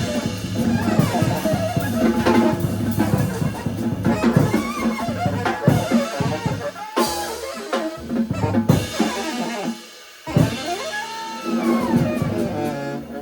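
Jazz trio of alto saxophone, bass and drum kit playing, with the saxophone carrying the melody over bass and drums; the music drops away briefly about ten seconds in and then picks up again.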